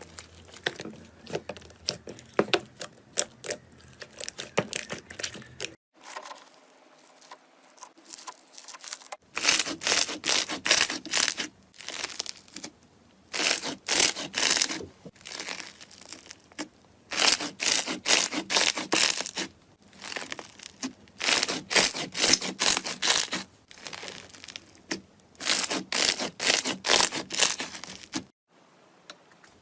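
Slime being squeezed and stretched by hand, giving dense crackling and sticky popping clicks in repeated bursts of a second or two with short pauses between.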